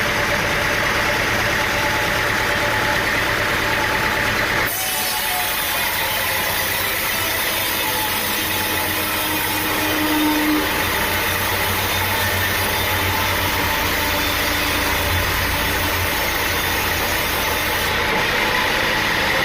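An engine running steadily. The sound changes abruptly about five seconds in and again near the end.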